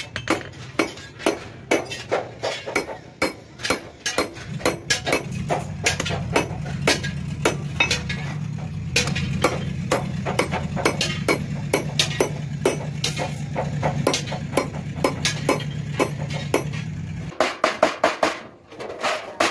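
Hammer tapping a metal punch into an aluminium sheet, a steady run of sharp metallic strikes about three a second, chasing a decorative pattern into the metal. A low steady hum runs under the strikes through most of the middle and stops shortly before the end.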